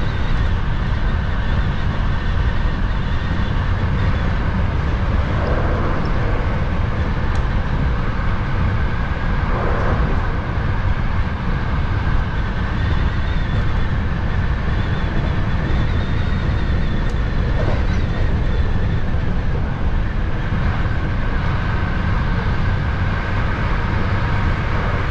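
Hankyu 7000-series electric train running steadily between stations, heard from inside the train behind the driver's cab: a continuous rumble of wheels on rail and running gear, with a faint steady high whine over it.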